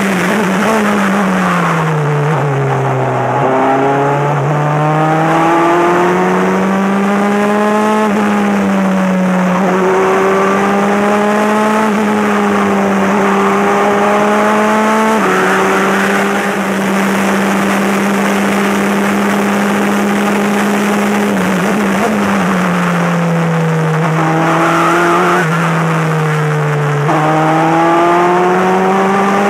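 Formula 4 race car engine heard from the cockpit: it slows with falling revs at first, then climbs through the gears with two sudden drops in pitch at the upshifts, holds steady at high revs for several seconds, falls again, and picks up once more near the end.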